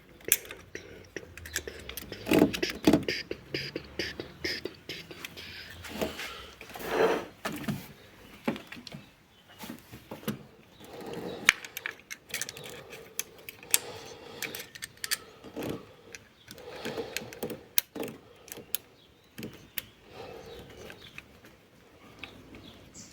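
Irregular clicks, clinks and rattles of metal hand tools and engine parts being handled during mechanical work, with a few louder clattering moments.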